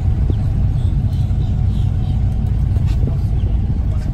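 Boat engine running with a steady low rumble, the boat motoring slowly out of a marina.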